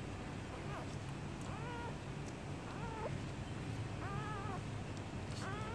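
Newborn puppies squeaking while they nurse. There are about five short, high, wavering squeaks, roughly one a second, over a steady low hum.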